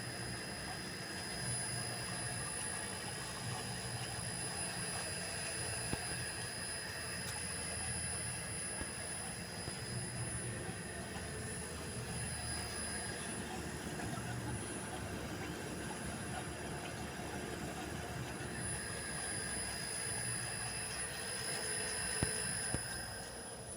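Riva Precompress I 33-punch rotary tablet press running steadily: a high, steady whine over a low hum that swells and eases every second or two.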